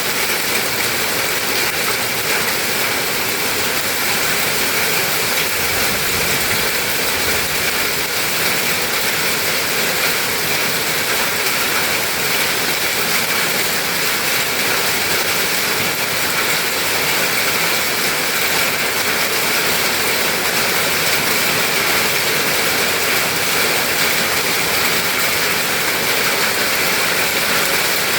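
Torrential storm rain with hail pelting down, a loud, steady, dense hiss of noise that does not let up.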